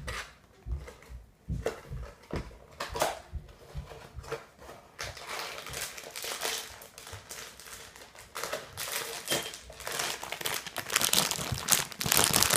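Packaging being opened by hand: a few scattered handling clicks at first, then dense crinkling from about five seconds in, getting busier near the end.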